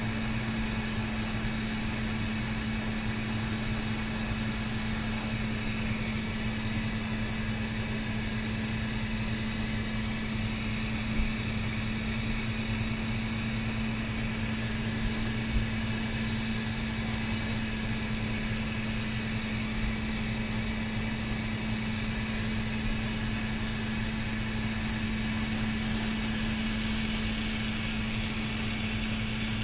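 Steady low mechanical hum with a hiss over it, from a glassblowing torch bench while the torch burns. A couple of brief light clicks come near the middle.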